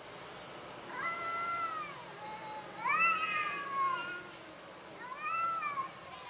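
Domestic cat yowling in a standoff with another cat: three drawn-out calls, each rising then falling in pitch, about a second in, in the middle (the loudest), and near the end.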